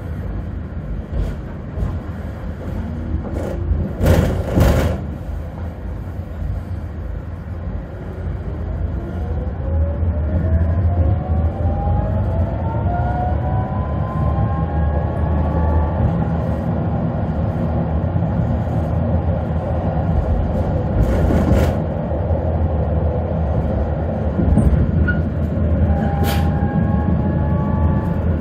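Tatra KT4D articulated tram heard from inside while riding: a steady low rumble of the running gear, with the traction motors whining and rising in pitch as the tram gathers speed. A loud knock about four seconds in and two more later on.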